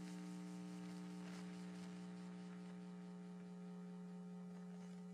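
Faint, steady electrical mains hum picked up by the recording: one low buzzing tone with a row of fainter, higher tones above it, unchanging throughout.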